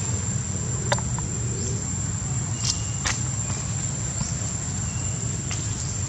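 Steady high-pitched insect drone over a low rumble, broken by a few sharp clicks and two brief faint high chirps.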